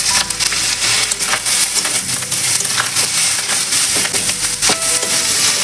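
Fried rice sizzling in a hot aluminium kadhai while a steel spatula stirs it, scraping and knocking against the pan many times.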